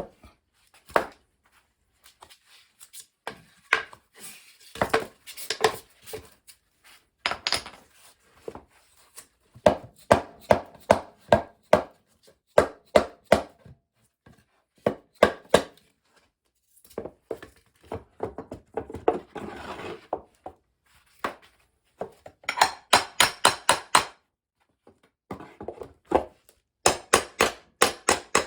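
Hammer blows tapping a 2x2 ft foam-backed compressed-wood sub-floor tile into place: single knocks and quick runs of strikes, with pauses between. About twenty seconds in there is a short scrape.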